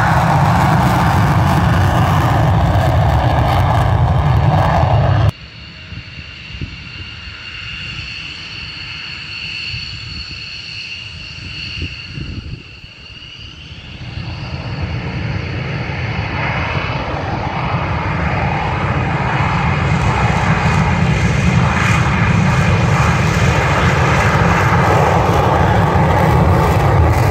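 Twin jet engines of F-15 Strike Eagles: a loud, steady roar of a jet on its takeoff roll cuts off abruptly about five seconds in. A quieter stretch follows with the high whine of jet engines at low power, and about halfway through the roar builds again as an F-15 powers up and accelerates down the runway.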